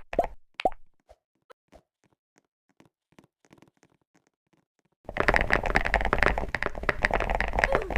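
Chocolate sound effect: a few sharp pops in the first second, faint scattered ticks, then from about five seconds in a loud, dense crunching and crackling close to the microphone.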